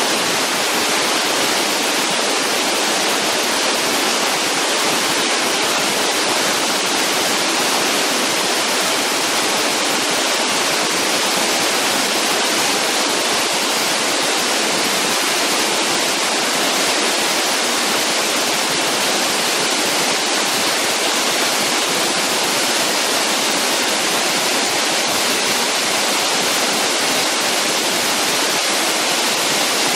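Waterfall falling steadily: an even, unbroken rush of water that does not change in level.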